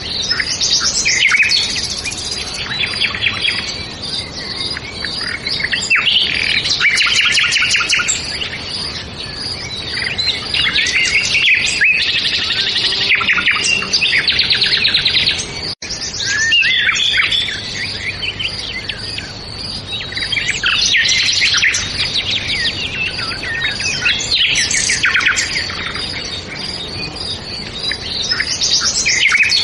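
Several songbirds singing and chirping together in a continuous, overlapping chorus of quick trills and calls, with a momentary dropout just past the middle.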